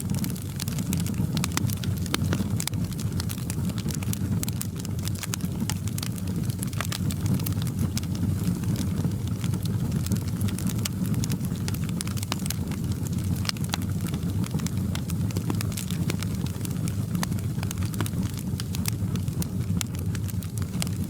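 Wood fire crackling in a fireplace: a steady low rumble of flames with many sharp, irregular pops and snaps.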